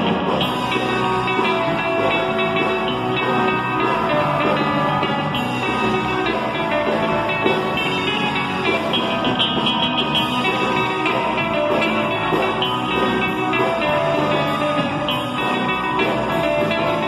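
Live instrumental surf rock: two electric guitars and an electric bass playing through amplifiers.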